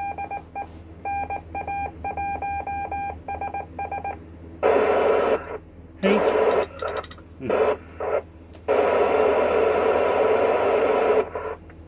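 Amateur radio receiver on the ISS FM repeater downlink. For about four seconds a single-pitch tone is keyed in short and long beeps, then bursts of FM receiver hiss come and go, with a few sharp clicks in the middle and a long stretch of loud hiss near the end.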